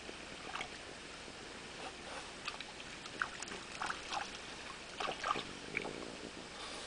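A French bulldog wading and splashing in a shallow stream. A run of small, sharp splashes comes about three to five seconds in, over the steady trickle of the water.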